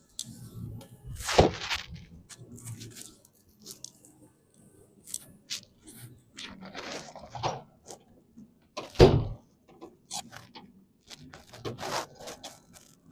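Clinks, knocks and scrapes of metal parts and hand tools during work on a van's front brake. Two heavier thuds land about a second and a half in and again about nine seconds in.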